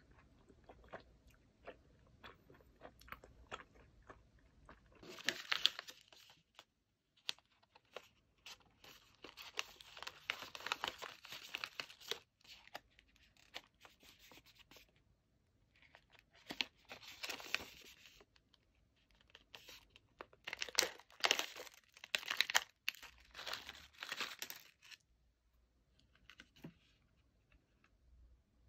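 Snack packaging being handled and torn open: four separate bursts of crinkling and tearing, the loudest near the end, after a few seconds of soft chewing clicks.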